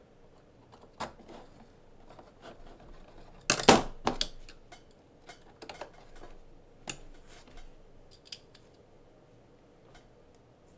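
Small screws and RC car parts handled on a work mat: scattered light clicks and taps, with a louder rattle of parts about three and a half seconds in.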